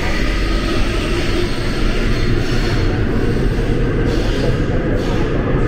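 Daejeon Metro Line 1 subway train running on the rails: a steady, loud rumble with hiss. The high hiss thins out about four seconds in.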